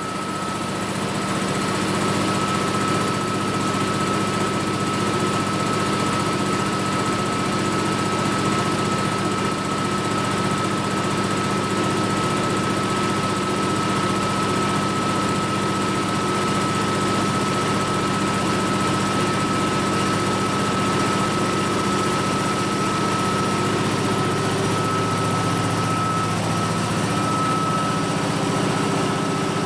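Ingersoll Rand H15T4 20 hp high-pressure breathing-air compressor running steadily while filling a bottle, a low hum with a thin steady high whine over it. It grows louder over the first couple of seconds, then holds level.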